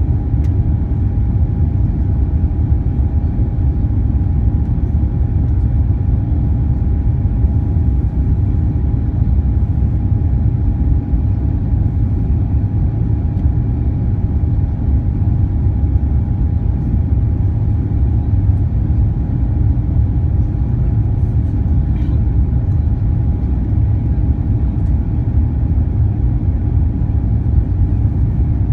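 Cabin noise of an Airbus A350-941 in its climb after takeoff, heard from a window seat: a loud, steady rumble of its Rolls-Royce Trent XWB engines and the rushing air, with a steady thin whine above it.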